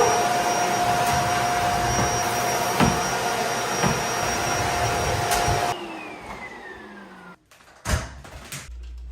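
Vacuum cleaner running with a steady high whine, the nozzle knocking now and then. About six seconds in it is switched off and the whine falls as the motor winds down. A single knock follows near the end.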